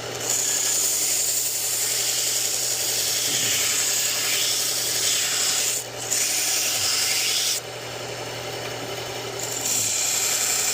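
Belt sharpener running with a steady hum while a pocket-knife blade is ground against the abrasive belt to cut in its edge bevels, a loud hissing grind. The grinding breaks off briefly about six seconds in, eases for about two seconds, then comes back strongly.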